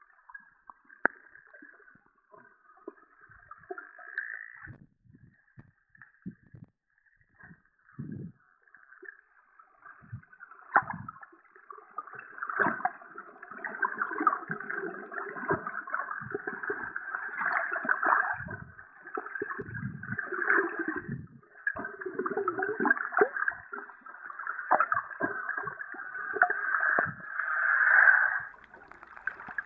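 Wild dolphins vocalizing underwater: dense trains of rapid clicks and buzzing pulses, sparse at first and building into a near-continuous chatter about twelve seconds in. Scattered low thumps of water movement come through as well.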